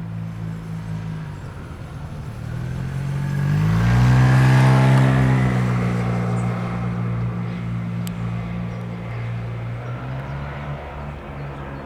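An engine passing by: it grows louder and rises in pitch about three to four seconds in, is loudest around four to five seconds, then slowly fades.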